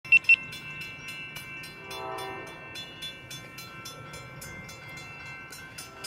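Railroad grade-crossing warning bell ringing rapidly and evenly, about four or five strikes a second, with steady ringing tones, the gates down. Two sharp knocks right at the start, and a brief faint horn-like note about two seconds in.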